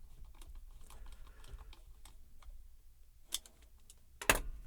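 Small plastic clicks and taps from handling headphone parts during reassembly, with a sharper click about three seconds in and a louder knock near the end.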